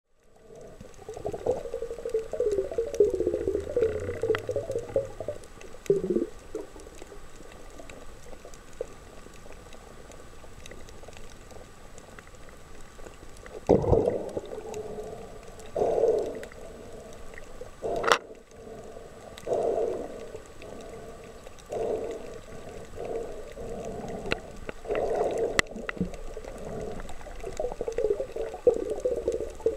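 Muffled water noise picked up by a camera in an underwater housing: gurgling and sloshing that swells and fades every second or two, with a sharp click now and then.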